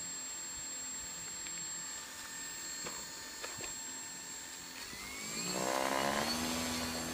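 Electric motor and propeller of a foam RC model plane running on the ground with a steady high whine; about five seconds in the pitch rises and it gets louder as the throttle is opened, then eases back near the end.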